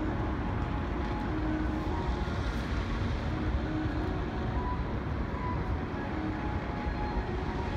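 Bellagio fountain water jets spraying: a steady rush over a low rumble, with no breaks.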